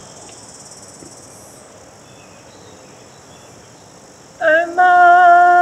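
Steady high insect hum in the open air, then about four and a half seconds in a woman begins a karanga: a long, high, held call that bends up briefly at its start.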